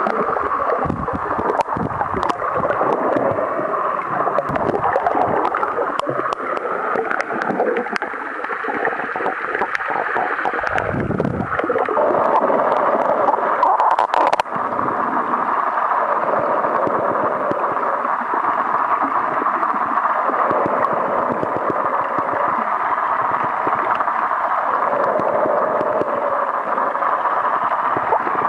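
Underwater water noise picked up by a Sony DSC-TX5 waterproof compact camera held below the surface: a steady, muffled rush with gurgling, scattered crackles through the first half and a brief low thump near the middle.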